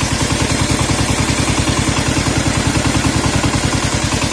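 Kentavr MB 1010DE-6 heavy walk-behind tractor's 10 hp single-cylinder diesel idling steadily with an even chug of about seven beats a second, warming up just after being started in the cold.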